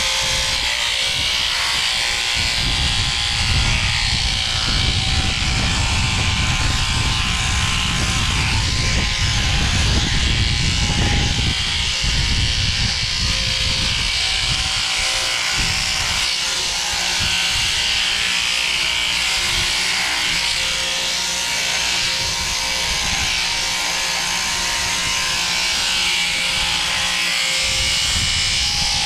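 Portable electric sheep-shearing handpiece running steadily, its comb and cutter buzzing as it clips through a lamb's wool. A heavier low rumble sits under the buzz for about the first twelve seconds, then eases.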